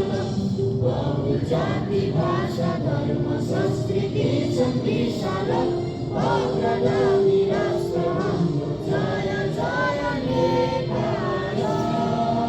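A group of voices singing a song together in chorus, with music.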